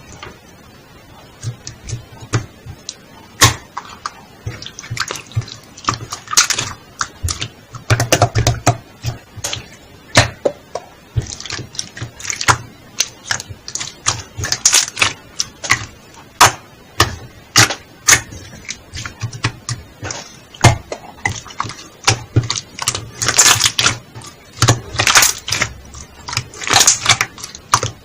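Slime being squished, stretched and poked by hand, making irregular sticky clicks, crackling pops and short squelches.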